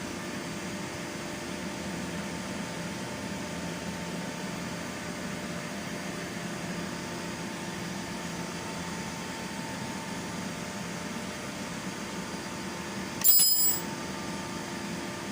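Steady mechanical hum with an even hiss. About thirteen seconds in, a short high-pitched ring lasting about half a second.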